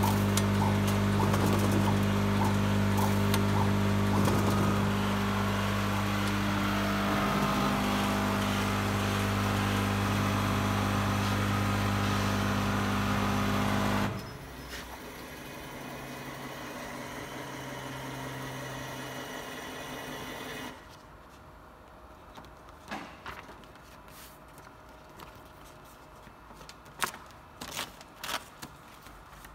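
Duplo DC-F1 paper folder with its DC-445 card creaser running with a steady hum, with light regular ticking, about two to three a second, at first. About halfway through it shuts off suddenly, a fainter hum carries on for several seconds and stops, and then sheets of card are handled with a few rustles and sharp taps near the end.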